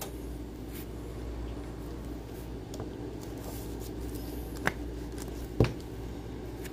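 Trading cards being handled: two short snaps about a second apart, a little after the middle, over a steady low hum.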